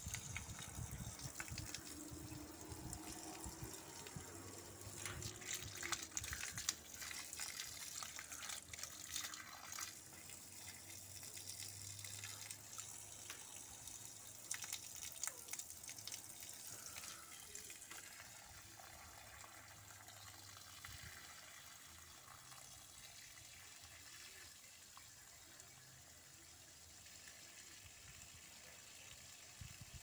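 Backwash water from a sand filter gushing out of a hose onto the ground. The flow is louder and more splashy in the first half and settles to a quieter, steady pour after the middle.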